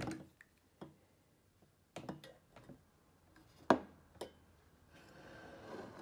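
A stream of nitro cold brew from a keg tap stops with a thump, followed by scattered clicks and knocks of a double-walled glass being handled and set on a table, the loudest a sharp knock just past the middle. A soft hiss rises near the end.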